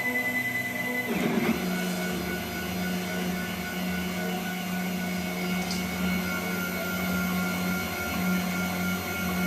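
Stepper motors of a homemade CNC machine whining steadily as the axes move, with a sudden change of pitch about a second in as the motion changes.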